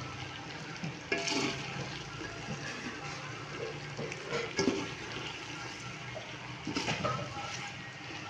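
Macaroni being stirred and tossed in a hot metal pan with a spatula: a steady sizzling hiss, with a few louder scrapes of the spatula against the pan, about a second in, midway and near the end.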